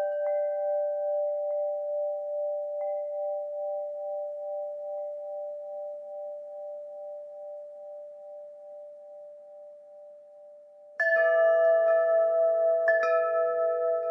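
Metal wind chimes ringing. A few long tones waver as they slowly fade over about ten seconds, with a couple of light touches. About eleven seconds in, a fresh cluster of chime tones is struck, then another about two seconds later.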